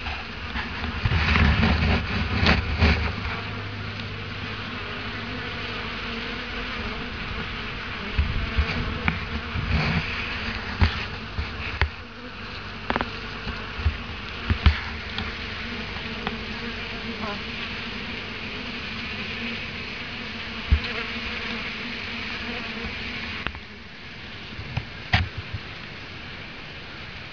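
Many honeybees buzzing in a steady drone as they gather honey that has leaked out of the hive, louder for the first few seconds. A few sharp clicks and knocks are scattered through it.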